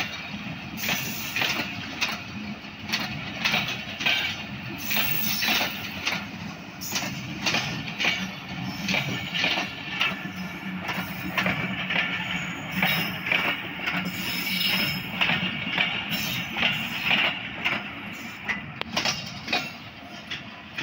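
Passenger train coaches rolling past at low speed, their steel wheels clicking and knocking over rail joints in an irregular run over a steady rumble.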